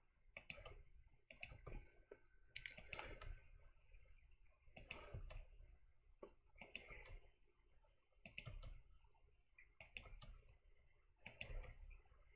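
Faint clicking of a computer mouse and keyboard at a desk: about eight sharp clicks, some in quick pairs, spaced roughly every second and a half, over a faint low room hum.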